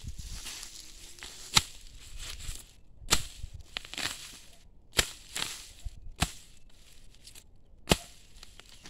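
Hand hoe (enxada) chopping into soil and grass clumps to uproot weeds: about seven sharp strikes at irregular intervals, with rustling of the grass and roots between blows.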